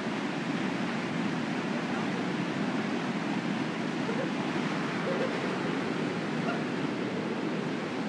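Steady rush of a small waterfall pouring over rock into churning water.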